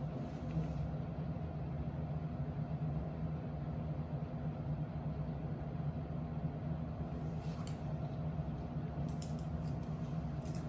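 Steady low mechanical hum of room equipment, with a few brief faint hissy rustles in the last few seconds.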